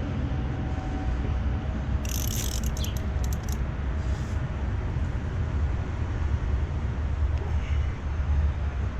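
A socket ratchet clicking in a quick run of clicks about two seconds in, then once more a little later, as it is worked against an engine-mount bolt too tight to break loose, under a steady low rumble.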